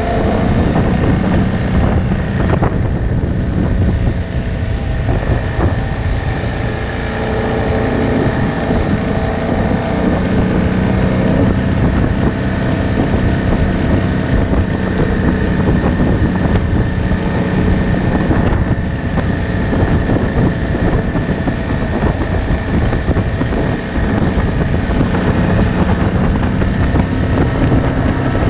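ATV engine running steadily under way, its note shifting a little with throttle, with wind noise on the microphone.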